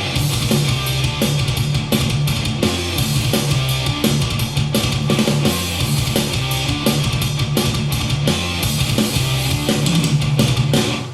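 Heavy rock music with drums and electric guitar, played through a Telefunken HL 870 CD three-way loudspeaker.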